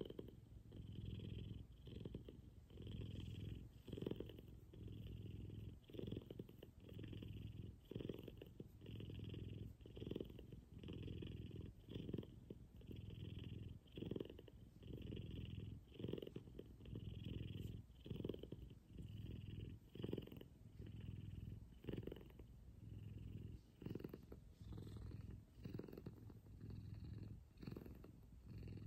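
F2 Savannah cat purring steadily while being stroked, swelling and fading about once a second.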